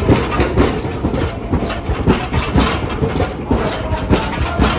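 Hiroshima Electric Railway 3950-series "Green Liner" articulated tram passing close by. Its wheels clatter over the rails in a string of irregular knocks above a steady low rumble.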